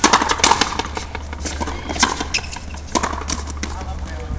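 Frontenis rally: a string of sharp cracks, irregularly spaced, as the hollow rubber ball is struck by the rackets and slams off the fronton walls, each ringing briefly in the court.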